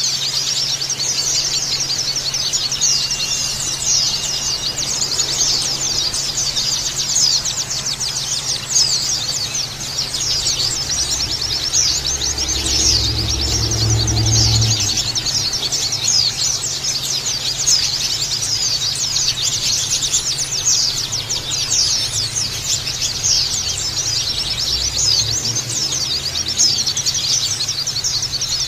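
A flock of white-eyes (pleci) chirping together: a dense, unbroken chorus of quick, high chirps. A low rumble rises under it for a few seconds in the middle.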